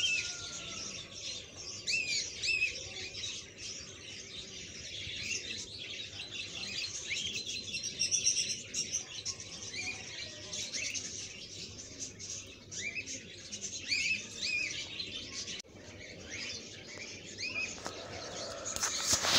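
Small birds chirping on and off in short arched chirps, over a soft sizzle of garlic, ginger and onion frying in oil in a pan, with a louder burst of noise near the end.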